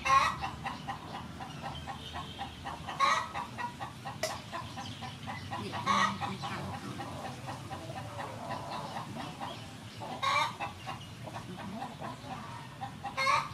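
Chickens clucking, with a louder call standing out about every three seconds.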